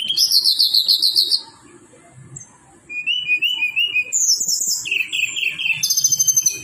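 Tledekan bird song: quick phrases of tightly repeated, high whistled notes and trills, each phrase built differently. The singing stops about a second and a half in and starts again about a second later.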